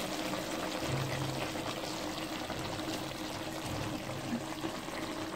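Chicken pieces simmering in oil and their own juices in a pot on low heat: a steady, watery bubbling.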